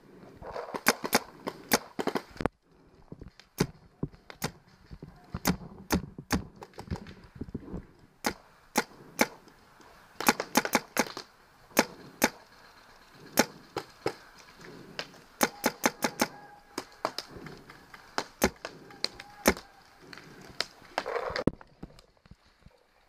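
Paintball markers firing: sharp pops in irregular quick bursts of a few shots each, some loud and close, others fainter.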